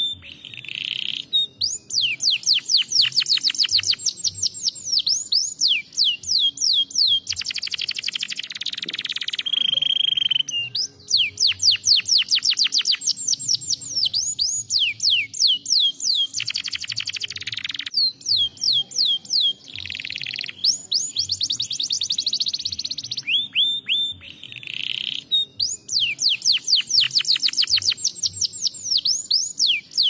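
Domestic canary singing: fast rolling trills of repeated notes, each sweeping down in pitch, in phrases of a few seconds broken by short pauses.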